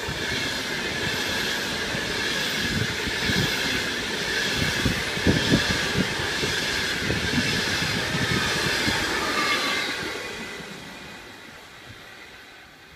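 ETR 460 Frecciabianca tilting electric train passing through at speed. Its wheels squeal on the curve and irregular knocks come from the wheels over rail joints and points. The sound dies away after about ten seconds.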